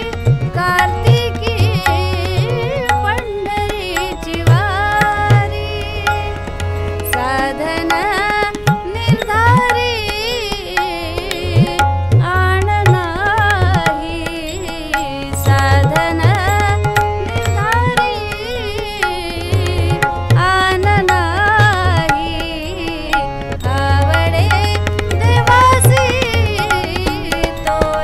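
A woman singing a Marathi abhang (devotional song), accompanied by harmonium and tabla. The tabla's low drum comes in with repeated deep strokes in stretches under the melody.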